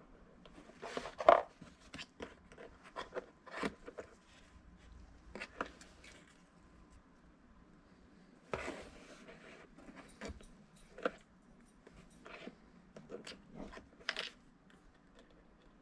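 Irregular clicks, taps and short scrapes of small parts being handled while a motor is fitted to a boat's drive shaft, with the sharpest click about a second in.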